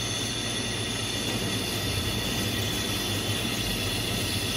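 Carbo 500 drinks carbonator running: a steady mechanical hum with an even hiss as it pulls the carbonated liquid back through its chiller, before any liquid reaches the tap.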